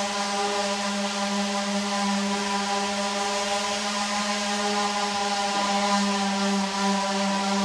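A steady buzzing hum at one unchanging pitch.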